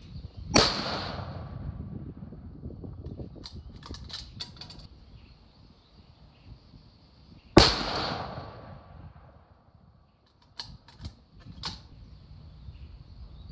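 Two shots from a 6mm Creedmoor bolt-action rifle, about seven seconds apart, each a sharp crack that rings out for a second or so. Between and after the shots come bursts of short metallic clicks from the bolt being cycled.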